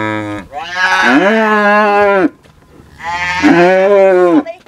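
A calf bawling loudly while its ear is clamped with an ear-tag applicator: two long bawls of about a second and a half each, following the tail of an earlier one.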